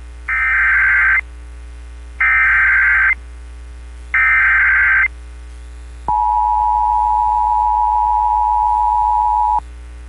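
Emergency Alert System signal: three short buzzy bursts of SAME header data, each about a second long and evenly spaced. The EAS two-tone attention signal follows, a steady sustained tone for about three and a half seconds, marking the start of an evacuation alert.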